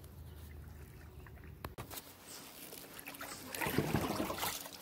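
Water splashing and trickling close beside a kayak, loudest from about three and a half seconds in. It comes after a quieter stretch with a faint low hum and a couple of sharp clicks.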